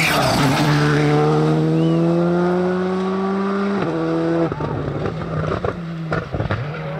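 Rally car engine at full throttle, its note climbing steadily for about three seconds, then a quick upshift. About four and a half seconds in the throttle lifts and the engine note falls away, leaving scattered sharp cracks.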